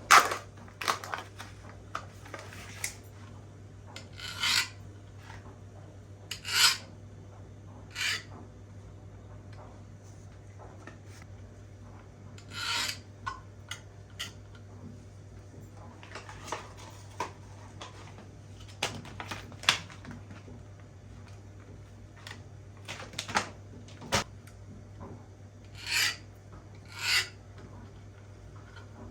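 Short scraping and rubbing strokes at irregular intervals, about a dozen in all, as of food or utensils being worked in a kitchen, over a steady low hum.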